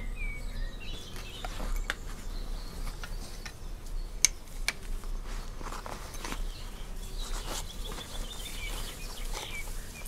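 Small songbirds chirping, with a short trill late on, over scattered clicks and rustles of footsteps and hands moving through grass. One sharp click a little over four seconds in is the loudest sound.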